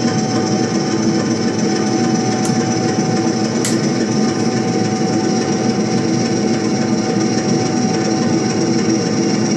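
Recorded diesel locomotive engine sound from a model railway sound unit running steadily, played through transducers on the layout's back scene. There is a steady whine over a dense, rattly running sound, with two small clicks near the middle.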